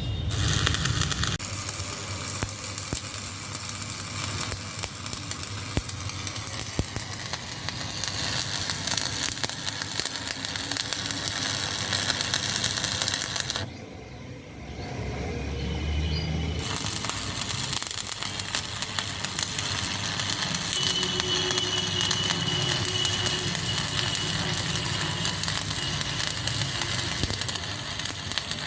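Electric arc welding crackling and sizzling steadily as metal is built up on the worn bush seat of a backhoe loader's swing cylinder body. The arc stops for a few seconds about halfway, then strikes again.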